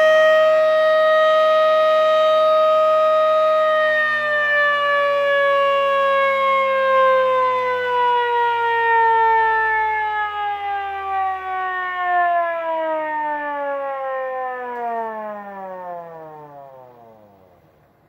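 3D-printed replica of a Federal Signal Model 2 electromechanical siren holding a steady tone, then, about four seconds in, winding down: the pitch slides lower and lower as the rotor slows, dropping faster and fading out near the end.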